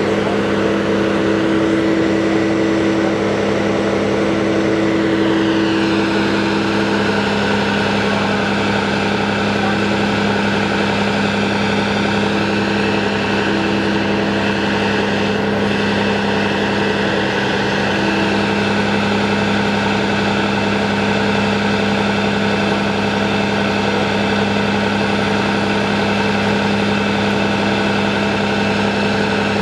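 Mercedes Actros fire truck's diesel engine running at a steady speed while the aerial ladder is raised, a constant droning hum. A higher hum is strong for the first several seconds and then comes and goes.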